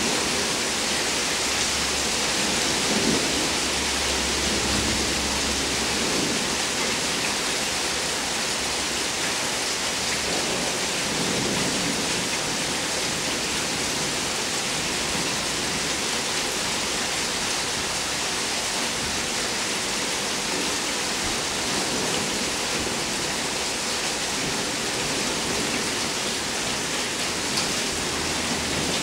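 Steady, even rain falling during a thunderstorm, with a low rumble of thunder during the first several seconds.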